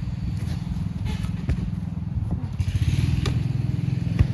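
Chainsaw engine running steadily, with a stretch of hiss a little past the middle.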